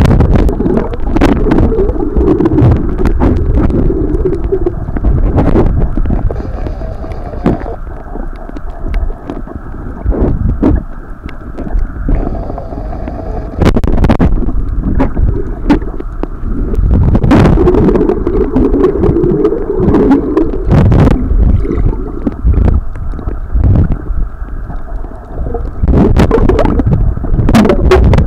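Muffled underwater sound from a camera held below the sea surface while swimming: a loud, low churning of moving water with scattered sharp clicks and knocks, swelling and easing in stretches.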